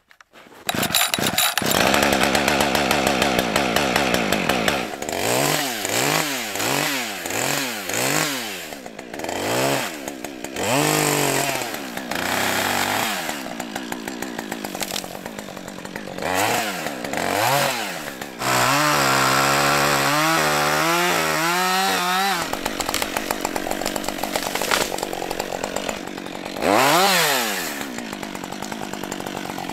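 Gas chainsaw cutting through a tree, revved up and down in short bursts, with a longer steady run about two-thirds of the way through and another sharp rev near the end.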